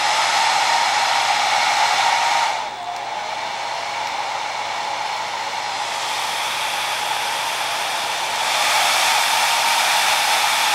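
Handheld hairdryer running, a steady rush of air with a motor whine. About two and a half seconds in it drops quieter and lower, as if switched to a lower setting, then comes back up to full power about eight and a half seconds in.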